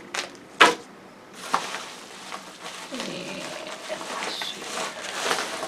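A small plastic bag of metal drop shot weights set down on a wooden table with a sharp clack, then a plastic shipping bag rustling and crinkling as hands rummage inside it for the next package.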